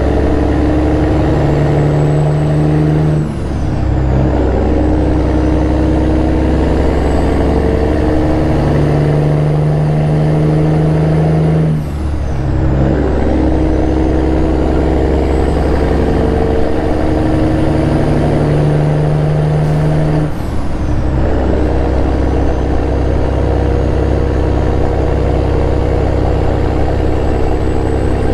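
Freightliner Classic XL semi truck's diesel engine pulling under load and upshifting three times, about 3.5, 12 and 20.5 seconds in. The engine note dips briefly at each shift, and a high whistle climbs through each gear and falls at each shift.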